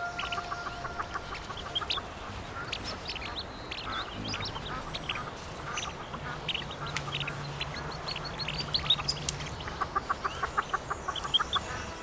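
Hooded merganser ducklings peeping: many short, high-pitched peeps, coming thick and fast in a quick series near the end.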